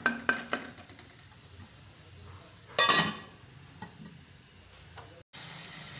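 A metal lid is set on the cooking pot with a single sharp clank that rings briefly, covering the masala to simmer.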